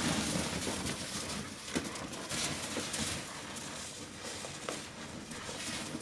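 Two Alaskan Malamutes wrestling in deep snow: low play grumbles and growls over the scuffing and crunching of snow as they churn it up.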